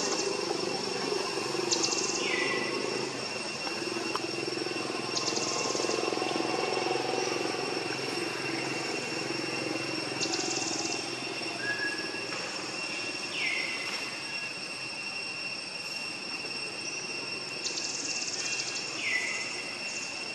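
Steady high-pitched insect drone, with short bursts of rapid chirping every few seconds and three brief falling calls, over a low steady rumble.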